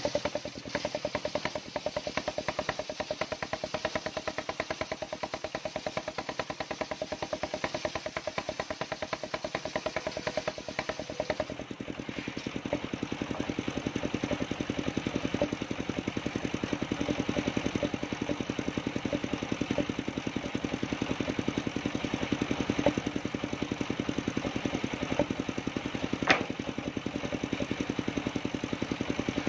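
Engine-driven circular sawmill running, its big blade ripping a coconut log lengthwise over the engine's rapid, steady firing. The sound shifts about twelve seconds in, and a sharp knock stands out near the end.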